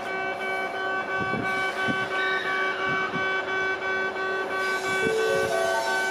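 Kintetsu Hinotori electric train moving slowly through the points during shunting: a steady electrical whine, with low thumps of wheels over the turnouts about a second in, around three seconds in and again near five seconds. Near the end a tone rises in steps.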